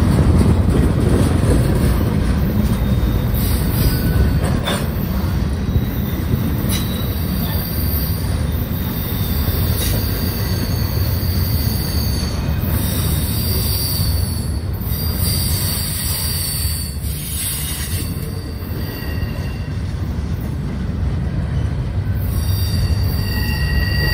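Union Pacific double-stack intermodal train's container well cars rolling past at close range: a steady heavy rumble of wheels on rail, with a few sharp clicks over rail joints and thin high-pitched wheel squeals that come and go, strongest near the end.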